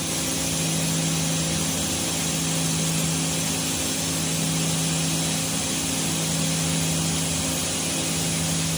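A 5-axis trunnion machining centre running, a steady hum with a loud, even hiss, while its tilting table swings the fixtured part through different angles.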